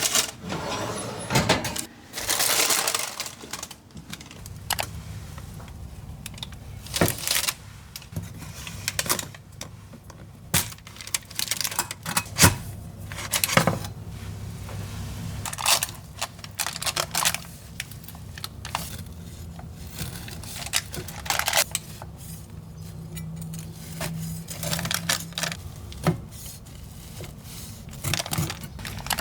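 Kitchen handling sounds: scattered light clinks and taps of utensils and dishes, with a few longer scraping or rustling sounds, over a low steady hum.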